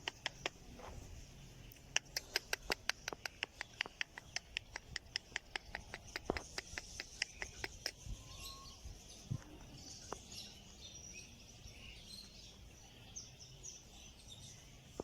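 Small birds chirping: a fast run of short, sharp chirps, about four or five a second, for some six seconds, then softer, scattered twittering.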